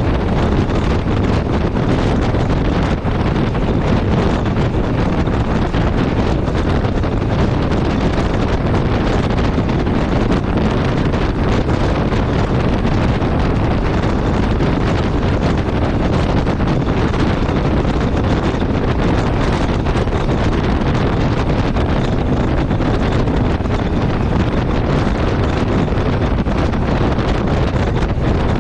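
Steady wind rush buffeting the microphone of a Yamaha Ténéré 700 ridden at road speed, with the bike's engine and tyre noise running underneath.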